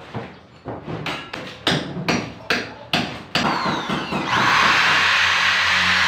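About six sharp knocks against a wooden board, roughly two a second, as a plastic 3-gang switch plate is pressed and tapped into place. Just past four seconds in, a steady loud hiss with a low hum starts and carries on.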